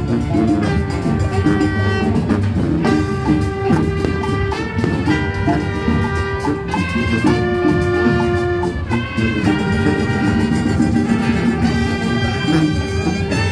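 Marching band playing a lively tune: brass sustaining held melody notes over steady drumming.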